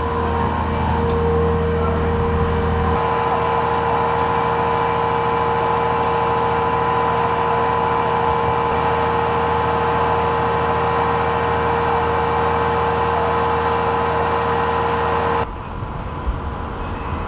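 A vehicle engine running steadily, with a constant whine over a low rumble; the rumble lightens a few seconds in, and near the end the sound drops suddenly to a quieter, different hum.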